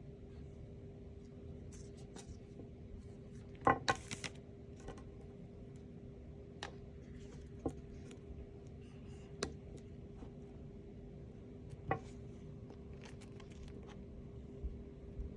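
Scattered light clicks and taps of small plastic toy pieces or packaging being handled, with a quick cluster of sharper clicks about four seconds in. A steady low hum runs underneath.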